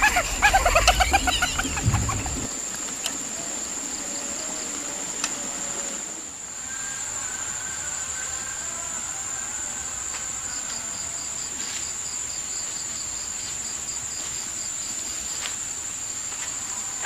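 Steady high-pitched chirring of insects, with a faster pulsing chirp joining in about ten seconds in. In the first two seconds a loud, rapidly repeating cackling call cuts off abruptly.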